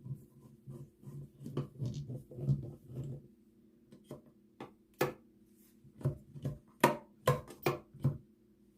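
Screwdriver driving in the screws of a wall switch's cover plate: quick scraping turns for about three seconds, then, after a short pause, a series of about ten sharp clicks and taps.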